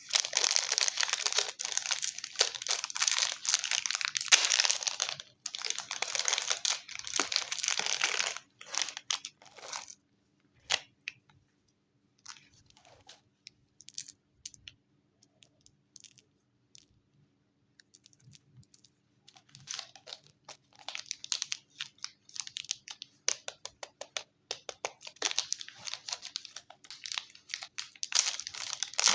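Chocolate wrapper crinkling and tearing as it is handled and opened. It goes quiet to a few scattered small clicks for about ten seconds in the middle, then the crinkling starts up again.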